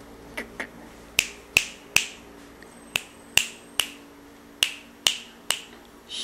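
A series of about eleven sharp clicks in loose groups of two or three, each ringing briefly.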